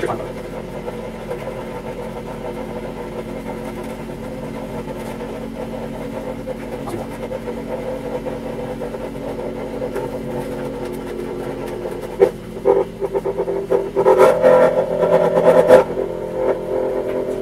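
Electric tabletop cotton candy machine running, its spinning head humming steadily as floss is wound onto a stick. Over the last few seconds the sound turns louder and uneven, with rattling.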